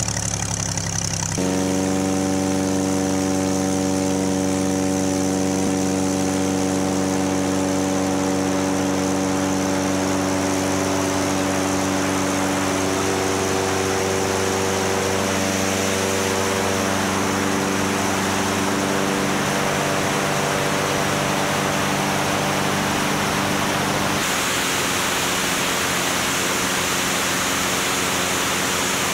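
Light aircraft's propeller engine idling steadily just after starting, with a slight change in its tone partway through. About 24 s in, the idle gives way to a steady rush of wind and engine noise in flight.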